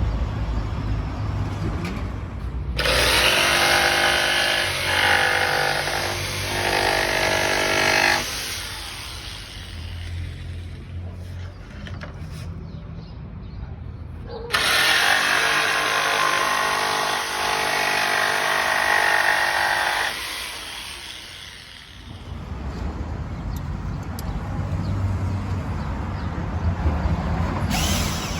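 An electric power tool cutting or drilling the wood of a custom speaker box, run in two spells of about five seconds each, with a lower rumble between them.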